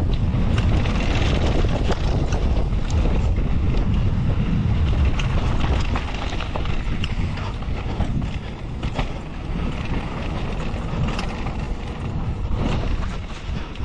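Wind buffeting an action camera's microphone during a fast mountain-bike descent, with tyres rolling over a dirt trail and many small clicks and rattles from the downhill bike. The rush eases somewhat about six seconds in.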